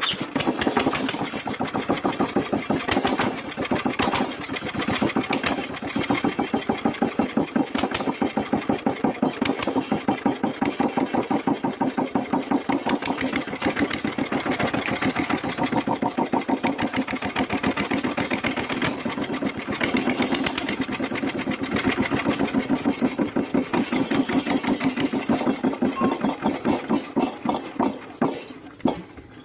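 Kubota single-cylinder diesel engine running with a steady, rapid firing beat, then slowing and dying away near the end as it is shut down.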